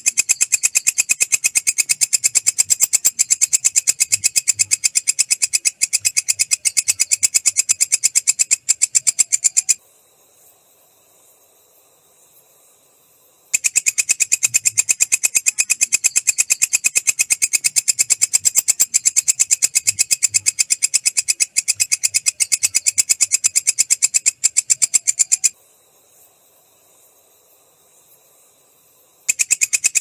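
Walang kecek katydid calling: a fast, steady train of high-pitched clicking pulses that breaks off twice for about four seconds, about ten seconds in and again a few seconds before the end.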